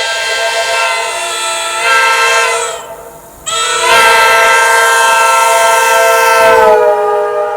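An RVB (Roy Victor Butler S75-S5) five-chime air horn sounding a loud, shrill chord of several notes, the sound nicknamed 'screeching cat'. The chord dies away about three seconds in, starts again sharply half a second later, and its pitch sags near the end as the air falls off.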